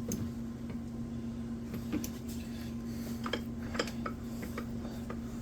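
Scattered light metallic clicks and taps, as of small chainsaw parts and tools being handled, over a steady low hum.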